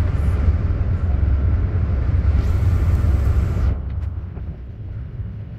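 Inside a 2016 MCI D4500CT motor coach with a Cummins Westport ISX12-G natural-gas engine cruising at freeway speed: a steady low drone of engine and road noise. A rushing hiss comes in a little after two seconds and cuts off suddenly near four seconds, after which the cabin sound drops quieter.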